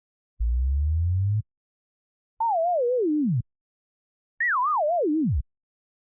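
Three one-second synthetic tones from the RX 8 signal generator, separated by silence. The first is a low buzzing tone. The next two are pure tones that waver up and down as they fall steeply in pitch, the second starting higher than the first.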